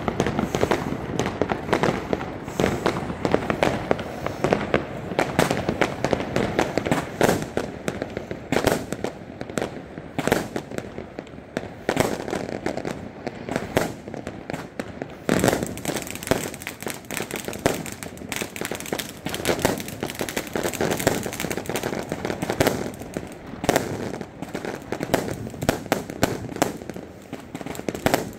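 Fireworks going off: a rapid, nearly unbroken string of bangs and pops as aerial shots launch and burst overhead, turning hissier and more crackly from about halfway through.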